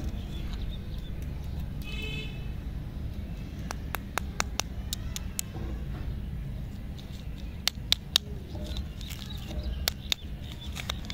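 Candy wrappers crinkling and snapping as lollipop wrappers are peeled off by hand, in a series of sharp crackles. Under it runs a steady low rumble, and a short high-pitched toot sounds about two seconds in.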